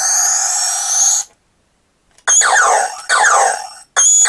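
Electronic sound effects from a vintage New Adventures of He-Man Powersword toy's speaker: a rising tone that cuts off just over a second in, then after a short gap a run of quick falling zaps. The effects keep sounding without a button being held down, the sign of a fault in the toy's button circuit.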